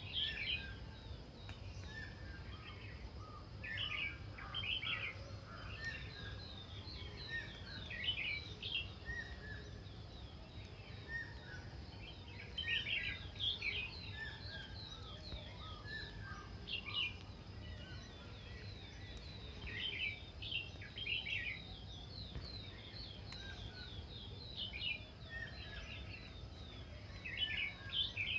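Several birds chirping and calling in short, quick notes, some sweeping downward, coming in clusters throughout, over a steady low background rumble.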